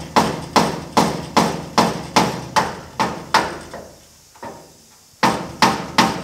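Hammer blows ringing on the thin sheet steel of a 1950 Chevy truck cab, raising a low spot around the antenna hole. The strikes come in a steady run of about two and a half a second, pause briefly, then three more near the end.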